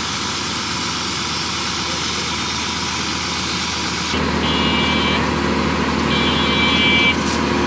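Paving machinery engines running steadily. About four seconds in they grow louder and deeper, and two high electronic beeps sound about two seconds apart.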